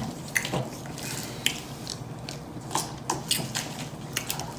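Loud mouth smacking while eating: a string of sharp, wet clicks from lips and chewing, irregularly spaced, a few a second.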